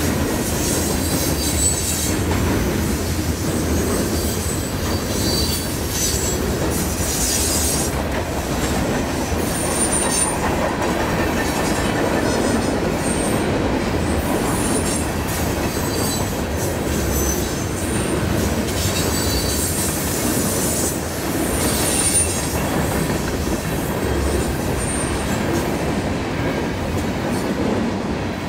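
Freight train cars rolling steadily past at close range: wheels rumbling and clattering on the rails, with brief high-pitched wheel squeals now and then.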